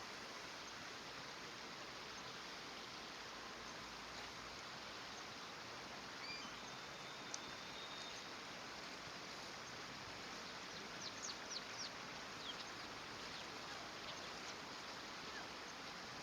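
Common kingfisher giving short, sharp, high-pitched calls: a few scattered ones, then a quick run of several about eleven seconds in, over a steady background hiss.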